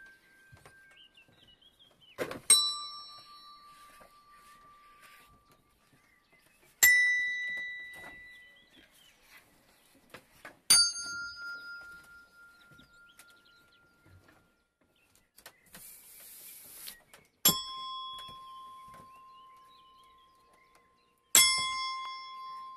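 Small tuned handbells struck one at a time: five single notes a few seconds apart, mostly at different pitches, each ringing and fading away. A short hiss comes about two-thirds of the way through.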